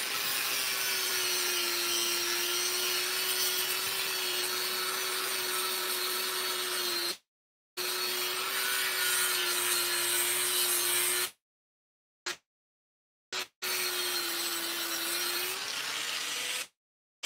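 Handheld electric angle grinder running against a flat metal disc, a steady motor whine over a gritty scraping racket. The pitch sags while it is pressed into the work and rises again about fifteen seconds in. The sound drops out completely three times: briefly about seven seconds in, for about two seconds near twelve seconds, and just before the end.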